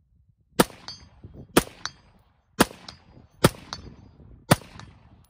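Five gunshots, about one a second, each followed a moment later by the short ring of a bullet striking a steel target.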